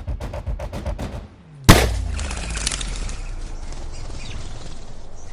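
A single air gun shot: one sharp, very loud crack about a second and a half in, followed by steady background noise. Before the shot, a fast, even patter stops about a second in.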